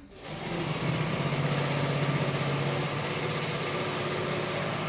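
Portable electric sewing machine running at a steady speed, its motor humming under a fast, even stitching rhythm; it starts just after the beginning.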